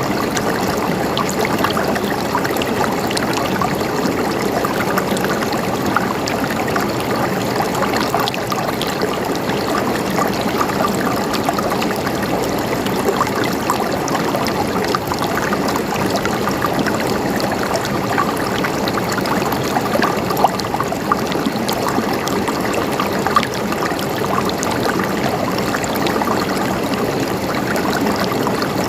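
River water flowing steadily over rocks, a continuous babbling and trickling.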